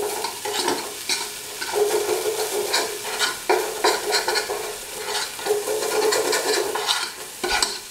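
A spatula stirring and scraping a spice-and-curd masala paste frying in oil in a metal pan, with repeated scrapes over a steady sizzle.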